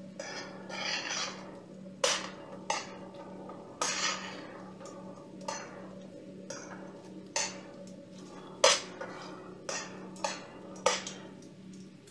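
Metal tongs clinking and scraping against a stainless steel skillet as fried pork chops are turned and coated in thick sauce. About ten sharp clinks come at irregular intervals, with softer scraping and stirring between them, over a low steady hum.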